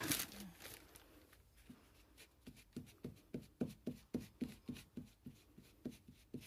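Wood-mounted rubber stamp scrubbed back and forth on a white wipe to clean the ink off it: a steady run of short rubbing strokes, about three a second, after a brief rustle of handling at the start.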